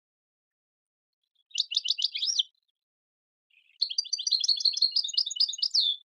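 Young European goldfinches chirping in a cage. Two bursts of rapid, high twittering calls: a short one about a second and a half in, then a longer run from about four seconds in.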